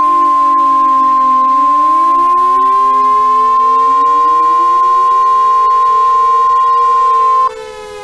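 NOAA Weather Radio 1050 Hz warning alarm tone, one loud steady beep that cuts off suddenly about seven and a half seconds in; it signals that an emergency message follows. Under it, outdoor warning sirens slowly fall and rise in pitch.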